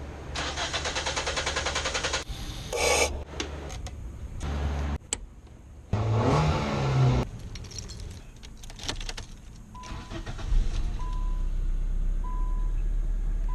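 Nissan Sentra 1.8L four-cylinder engine turning over on the starter with a rapid even pulsing, catching in loud bursts, then running steadily from about ten seconds in while a dashboard chime beeps about once a second. The hard start is the long-crank symptom that the owner traces to a failing fuel pump.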